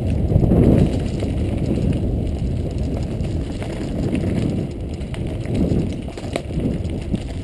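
Mountain bike rolling over a rough, rocky dirt trail, recorded from a camera mounted on the bike. A steady low rumble of tyre and wind noise runs throughout, with scattered clicks and rattles from the bike over rocks.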